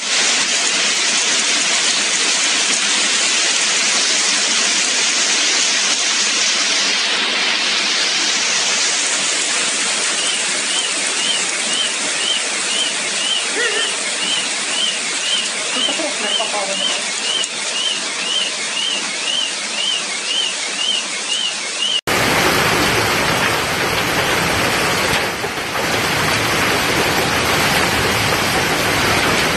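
Hail mixed with heavy rain pelting down: a dense, steady hiss of hailstones striking the ground, cars and foliage. A faint high chirp repeats about one and a half times a second through the middle. About two-thirds of the way in, the sound cuts to another recording of the same downpour with a fuller, deeper hiss.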